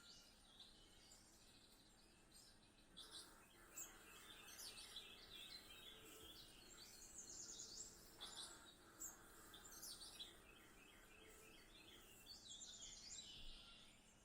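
Faint birdsong, clusters of short high chirps and calls over a steady low background hiss, played from a cat-entertainment video through a TV's speakers.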